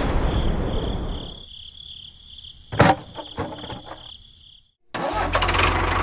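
Intro sound effects: a fading whoosh, a pulsing high electronic tone and a sharp click. They cut out, and about five seconds in a small motor starts running with a steady, fast-pulsing rumble.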